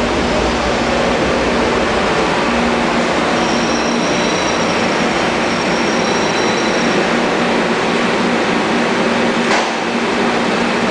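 Light-rail train running beside an underground platform and slowing as it pulls in, with a steady loud rumble and low hum. A thin, high squeal from the wheels or brakes sounds for a few seconds in the middle, and there is a single sharp click near the end.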